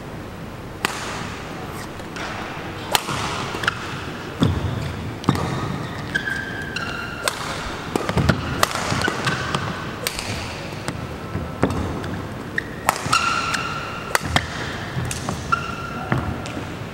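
Badminton rally: sharp racket hits on the shuttlecock every one to two seconds, with short shoe squeaks on the court mat between them, echoing in a large hall.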